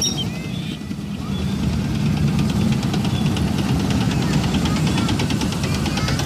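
Main battle tank driving past: a deep, steady engine rumble, with a fast, even clatter joining in about two seconds in.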